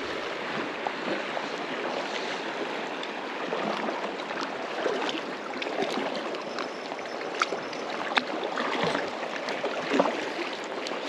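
River water rushing steadily over rocks, with a few faint short ticks here and there.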